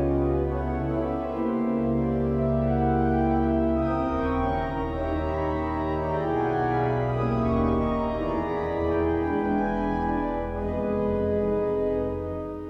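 Large church pipe organ playing slow sustained chords over a continuous deep pedal bass, the harmony shifting every second or two. It grows softer near the end.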